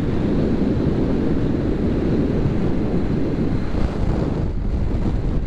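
Wind buffeting the microphone on a moving motorcycle: a steady low rumble of rushing air with road and engine noise beneath it.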